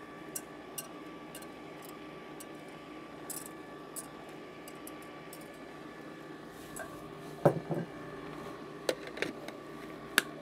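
Breville Smart Scoop ice cream maker humming steadily, its chilled bowl's compressor running, while batter is poured in. Light clinks of a wire whisk against the glass jug come early on, and a few sharper knocks and clicks near the end as the plastic lid is fitted on the machine.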